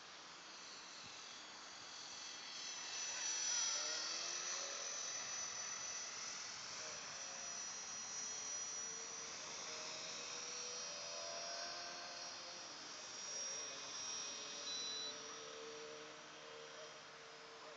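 Engine whine of an aircraft flying overhead: several steady high-pitched tones, with lower tones sliding down and back up in pitch as it passes. It is loudest a few seconds in and swells again near the end.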